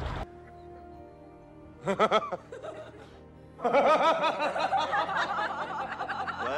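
A man laughing over quiet background music: a short chuckle about two seconds in, then a longer stretch of laughter from about halfway on.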